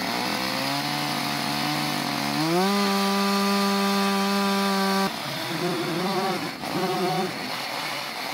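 Husqvarna XP two-stroke chainsaw starting up at part throttle, then revving up to a steady high pitch about two and a half seconds in. From about five seconds in it cuts a groove into an oak log, its pitch dipping and recovering over and over as the chain loads up in the wood.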